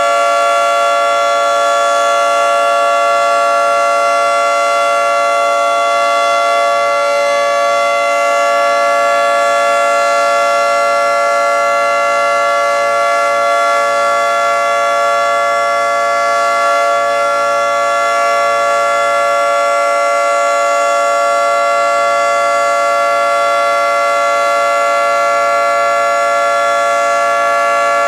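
Federal Signal 2T22 dual-tone electromechanical warning siren sounding continuously at full speed: a loud, steady two-tone chord held at a constant pitch.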